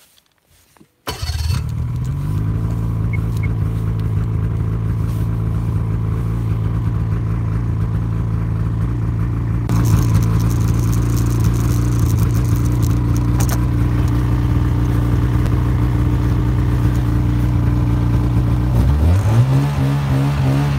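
Snowmobile engine running at a steady pitch as the sled rides along a snowy trail, cutting in after about a second of near silence. A rushing noise grows louder about halfway through, and near the end the engine revs up with its pitch rising.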